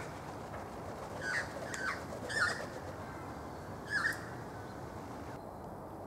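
Australian magpies giving short calls: a quick run of four between about one and two and a half seconds in, and one more about four seconds in.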